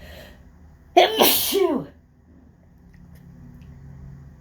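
A person sneezes once about a second in: a loud, sudden, voiced "achoo" lasting under a second, its pitch falling away at the end. It is one sneeze in a long fit of sneezes coming every few seconds, which the sneezer puts down to pollen.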